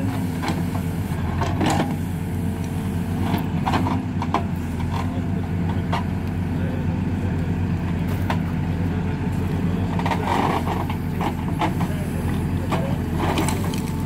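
Hidromek 102B backhoe loader's diesel engine running steadily under working load as the backhoe arm digs and dumps soil, with scattered knocks and clatters of dirt, stones and the bucket.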